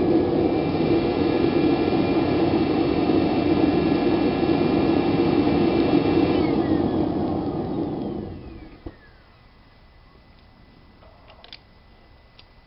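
Propane gas forge burner running with a steady rushing noise and a whistling tone, then shut off: about six and a half seconds in the whistle falls in pitch, and the rush dies away over about a second, followed by a single knock and a few faint ticks.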